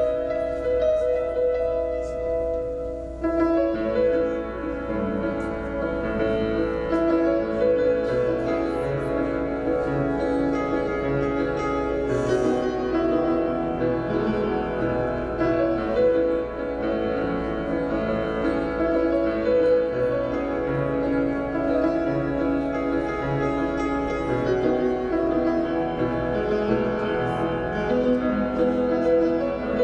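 Upright piano played solo: held notes for the first few seconds, then from about three seconds in a fuller passage of chords over repeating low bass notes.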